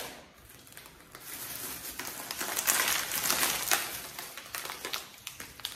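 Thin plastic packaging crinkling and rustling as grocery packets are handled and rummaged through, in an irregular run of crackly rustles starting about a second in.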